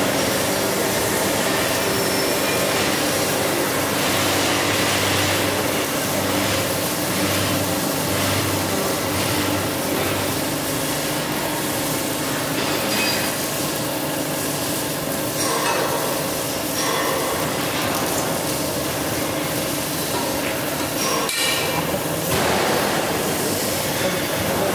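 Rust removal machine running with a steady motor hum while its wire brush wheels scrub a steel pipe pushed through by hand, with scattered metallic clanks and knocks from the pipe being handled.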